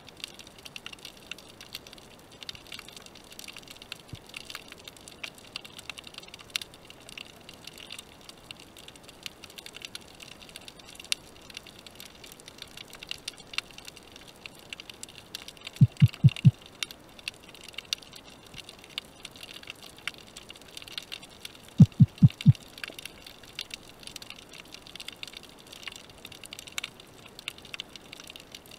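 Underwater ambience heard through a diving camera in shallow sea: a steady fine crackling and hiss, broken twice by a quick run of four low thumps, about halfway through and again some six seconds later.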